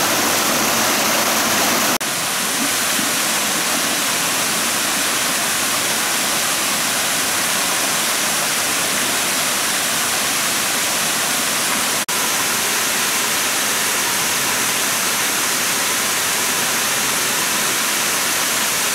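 Small waterfalls and cascading water rushing steadily. The rush changes abruptly about two seconds in and drops out for an instant near twelve seconds.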